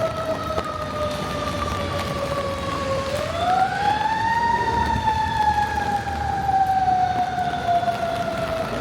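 Emergency vehicle siren wailing: its pitch slides slowly down, sweeps back up about three seconds in, then slides slowly down again.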